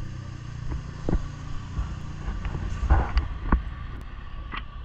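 Low, steady rumble of a motor vehicle engine running close by, with a few short knocks and taps over it.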